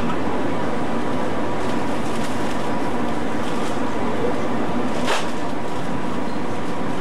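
Steady drone of the ferry MV Normandie running at sea, its engines and ventilation, with one sharp click about five seconds in.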